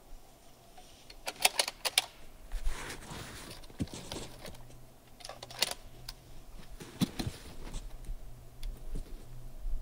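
Handling noise as a person gets down prone behind a rifle on a shooting mat: scattered sharp clicks, four in quick succession about a second and a half in and more a few seconds later, with soft rustling of clothing and gear between them.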